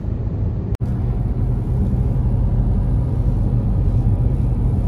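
Steady low road-and-engine rumble inside a moving car's cabin. The sound drops out for an instant about a second in, then the same rumble carries on.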